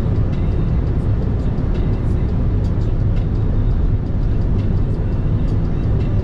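Steady low rumble of road and engine noise inside the cabin of a moving Mitsubishi Xpander Cross, with faint scattered ticks above it.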